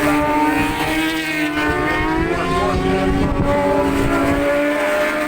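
Superbike racing motorcycle engines running at high revs on the circuit, a sustained loud note that shifts slightly in pitch.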